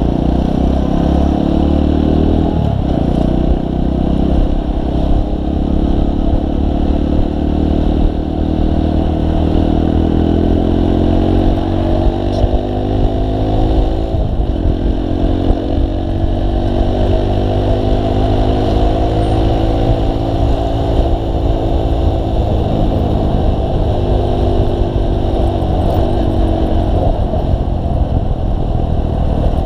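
Motorcycle engine heard from the rider's seat while riding in traffic. Its pitch rises as it accelerates and drops back several times.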